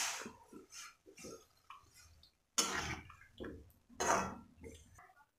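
A spoon stirring a watery tomato and vegetable curry in a kadai, with three louder swishes and scrapes against the pan among fainter clinks.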